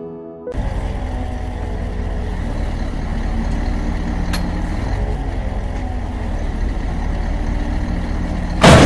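KamAZ truck crane's diesel engine running steadily. Near the end there is a sudden loud crash as the crane tips over.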